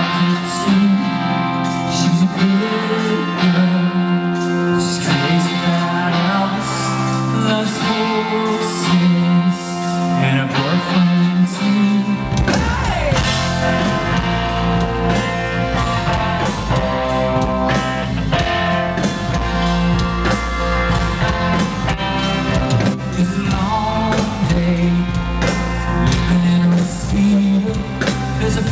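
Live rock band music with a man singing over electric guitar. The bass comes in about twelve seconds in and fills out the sound.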